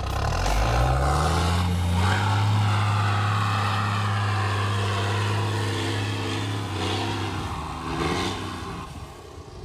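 A 700-horsepower truck-trial truck's engine revving up under full throttle as it climbs a steep, muddy slope. It holds at high revs for several seconds, then drops off near the end.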